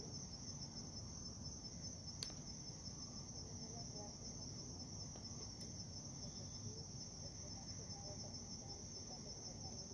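Crickets chirping steadily in a continuous high trill, faint, with a single short click about two seconds in.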